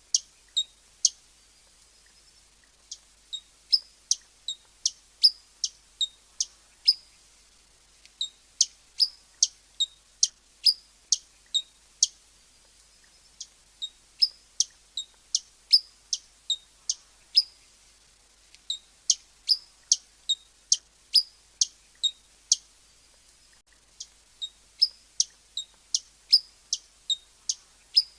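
Hummingbird giving short, sharp, high chip calls, about two a second, in runs broken by brief pauses.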